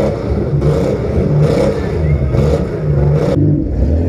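Compact cars' engines revving hard and running loud, the pitch rising and falling as the cars accelerate in a demolition derby.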